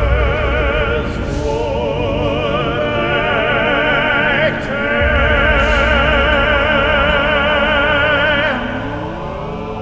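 Music soundtrack with operatic singing: long held notes with a wide vibrato over a heavy bass, the bass dropping out briefly about a second in and again near the end.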